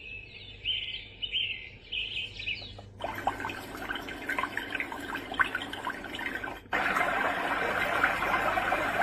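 Recorded nature sounds changing abruptly from one track to the next: birds chirping, then about three seconds in flowing water with birdsong over it, then near the end a steady rushing hiss that cuts off suddenly.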